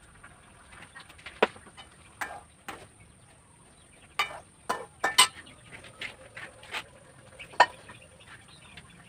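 Scattered clinks and knocks of a metal ladle against a wok and other cookware while fish fries, loudest in a quick cluster about four to five seconds in and once more near the end.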